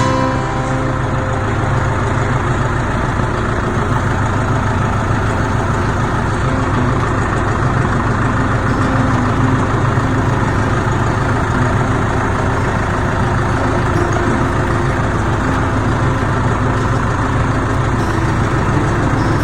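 Heavy diesel farm-machine engine running steadily at a constant speed.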